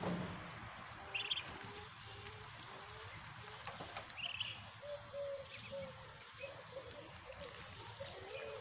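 Young Muscovy ducklings making soft, repeated short peeps and chirps, with a few higher chirps, over a steady faint outdoor hiss.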